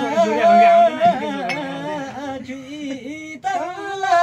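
A man singing a Karmarong folk song without instruments, in long, wavering held notes, with a short break for breath a little past three seconds in.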